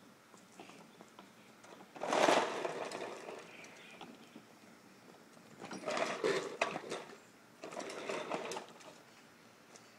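Plastic wheels of a red toy wagon rolling and rattling over a concrete driveway as a toddler pulls it in three short spurts, the first, about two seconds in, the loudest.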